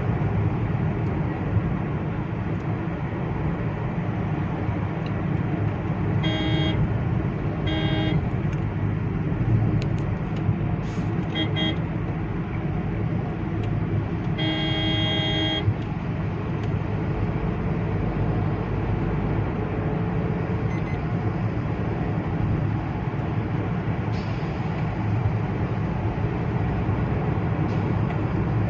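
Steady engine and tyre rumble heard inside a car's cabin at highway speed. A vehicle horn sounds several times between about six and sixteen seconds in, with short blasts first and a last blast lasting about a second.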